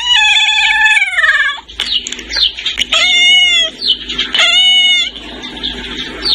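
Kitten meowing: one long, slowly falling meow, then two shorter rising-and-falling meows about three and four and a half seconds in, with quick high chirps in between.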